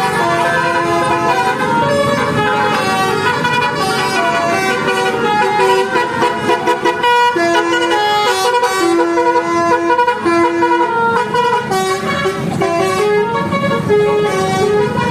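Bus basuri horn playing a tune: several horn notes stepping up and down, some held for about a second.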